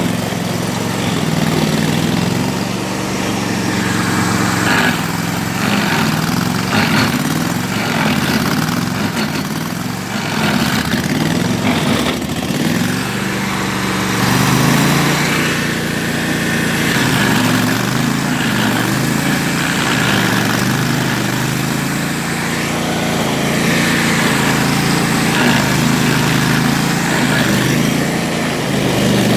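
Bandit ZT1844 stump grinder's 38 hp Kohler Command engine running at full throttle. Its pitch sags and recovers over and over as the cutter wheel loads up on the stump, with rough grinding noise rising at intervals.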